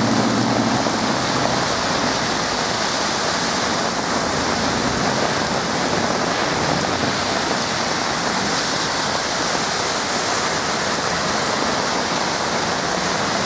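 Heavy downpour: dense rain pouring down and splashing on hard surfaces in a steady, loud hiss.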